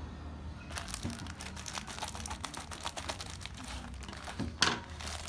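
Crinkling and rustling with many small clicks, as of objects being handled. One sharper click comes near the end.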